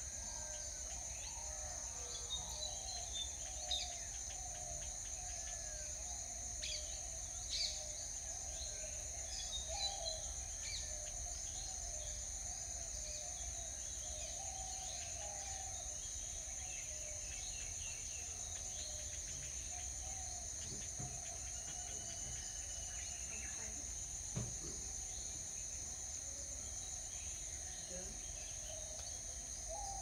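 Outdoor garden ambience: a steady high insect drone, with birds chirping and calling on and off, busiest in the first ten seconds or so. A few soft knocks come about two thirds of the way in.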